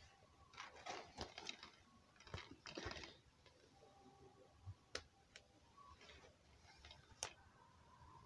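Plastic DVD case being handled: quiet clusters of clicks and rattles in the first three seconds, then two sharp single clicks about five and seven seconds in.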